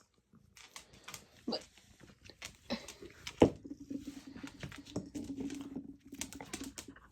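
A dog moving about, with scattered clicks and taps, and a low steady hum for about two seconds in the middle.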